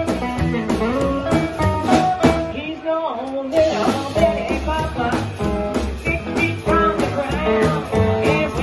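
Live rockabilly band playing: upright bass, hollow-body electric guitar and drums, with a woman singing. The bass and drums break off for a moment about three seconds in, then the band comes back in.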